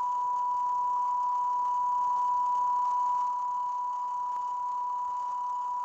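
Steady, unbroken line-up test tone, a single pure high-pitched beep, the reference tone recorded with colour bars at the head of a video tape, over faint tape hiss.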